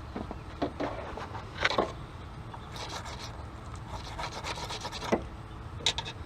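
Battery terminal cleaning tool scrubbing a car battery's negative terminal: a run of uneven scraping and rubbing strokes, with a longer stretch of steady scrubbing in the middle.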